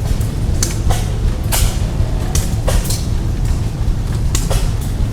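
Blacksmith's hammer striking metal on an anvil, about eight sharp blows in uneven pairs and clusters, over a steady low rumble.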